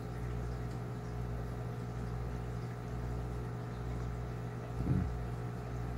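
Steady low hum of running aquarium equipment, with a brief low sound about five seconds in.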